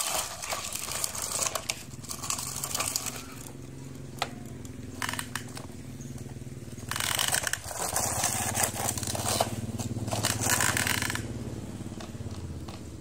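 Plastic toy dump trucks pushed by hand over gritty dirt, their wheels and beds crunching and scraping, with loose soil tipping out of a truck bed. It comes in bursts: a long one at the start, a short one in the middle and another long one later.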